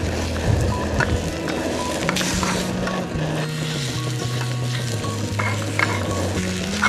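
A spoon stirring and scraping scrambled eggs as they sizzle in a small metal camping pot on a gas canister stove, with light clinks against the pot. Background music with a low bass line plays underneath.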